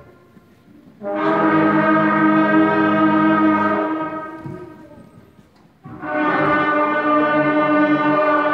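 Sixth-grade concert band of woodwinds and brass playing two long held chords together, the first entering about a second in and fading away after about three seconds, the second entering about six seconds in and held.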